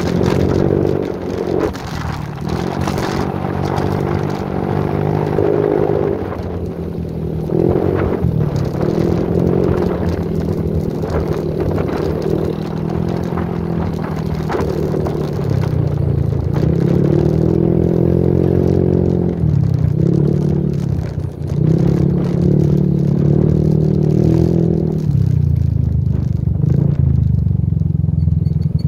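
Motorbike engine running while riding along a road, its pitch rising and falling as the throttle changes, with clattering and scraping rattles from the ride.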